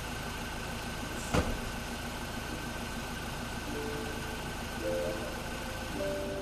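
Steady street background with a low engine-like hum, broken by one sharp knock about a second and a half in and, later, three short flat tones.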